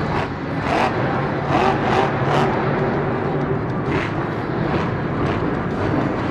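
Monster truck engine running hard, with several sharp bangs in the first few seconds.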